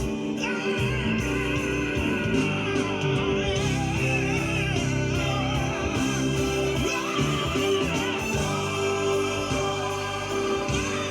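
Gospel music: voices singing with wavering, drawn-out lines over held instrumental chords and a bass line.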